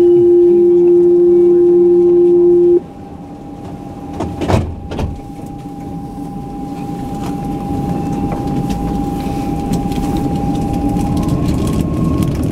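Alstom Citadis 302 tram departing a station. A loud steady warning buzzer sounds for the first few seconds, the doors close with a couple of thuds, and then the tram pulls away. As it gathers speed a rumble builds and a faint motor whine rises in pitch near the end.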